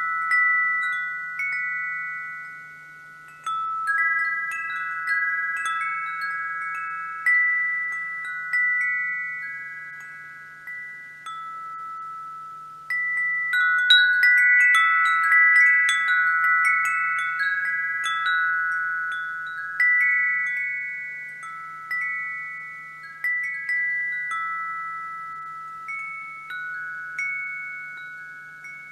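Wind chimes ringing: several pitched tones struck in irregular clusters, each ringing on and slowly fading. There is a lull about a dozen seconds in, then a busier flurry of strikes.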